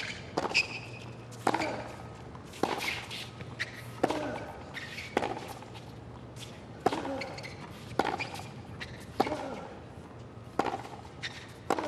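A tennis baseline rally: racket strings strike the ball in sharp pops about once a second, about ten in all. A few of the strokes carry a short grunt from the player hitting.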